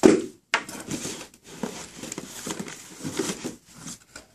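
Shrink-wrap being slit and peeled off a sealed hobby box of trading cards, with crinkling and rustling of plastic and cardboard, after a short thud at the start.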